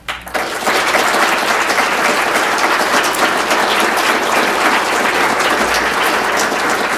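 Audience applauding. The clapping breaks out just after the start, swells within the first second and then holds steady.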